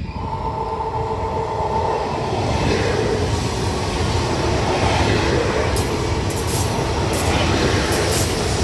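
Italo AGV ETR575 high-speed electric train running past. Its rushing rumble builds over the first few seconds and then holds steady, with a run of sharp clicks in the second half.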